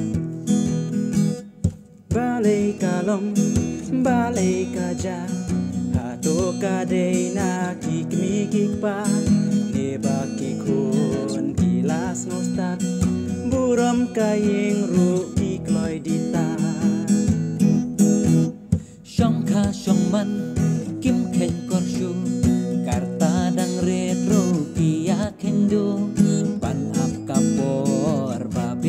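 Acoustic guitar strummed and picked while two men sing a Khasi song, the lead voice passing from one to the other. The music drops out briefly twice, about two seconds in and again about two-thirds of the way through.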